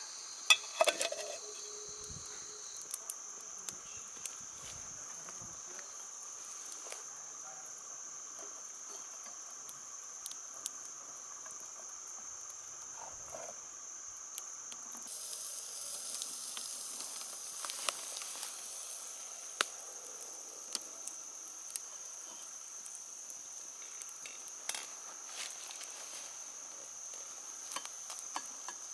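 Steady high-pitched insect chirring, with scattered sharp clicks and a brief hiss about halfway through.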